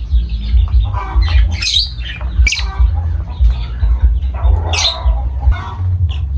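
Lovebirds chattering and squawking, with short shrill calls and three loudest sharp squawks about a second and a half, two and a half and nearly five seconds in, over a steady low rumble.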